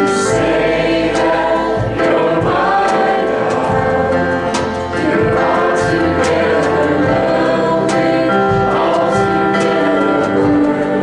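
A live gospel worship song: voices singing together, backed by acoustic and electric guitars and a keyboard.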